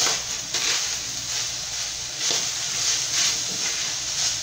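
Ground beef sizzling in a skillet, cooked through, while a wooden spoon stirs and scrapes through it in repeated strokes that make the hiss swell and fade.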